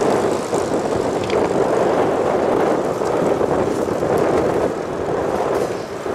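North American TF-51D Mustang's Packard Merlin V-12 engine and propeller running, a loud steady sound that dips slightly near the end.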